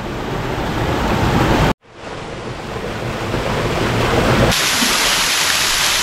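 Rushing water with wind buffeting the microphone, broken by a brief dropout just under two seconds in. From about four and a half seconds the hiss turns brighter and fuller: a small waterfall pouring into a pool.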